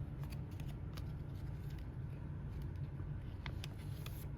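Light scattered clicks and rustles of baseball cards and plastic binder pages being handled, over a steady low hum.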